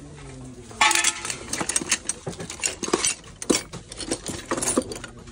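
Old metal hand tools (pliers, wrenches, files, a bicycle chain) clinking and clattering against each other as a hand rummages through them in a plastic crate. The sound is a run of irregular sharp clinks and knocks, with the loudest clatter about a second in.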